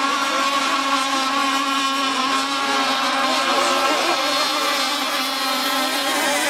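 Radio-controlled racing catamaran running flat out across the water: a steady buzzing motor drone whose pitch wavers slightly.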